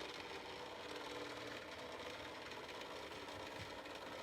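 Faint steady background hum and hiss: room tone.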